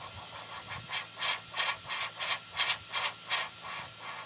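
Airbrush spraying paint into a clear polycarbonate RC car body: a hiss triggered on and off in quick short bursts, about three a second.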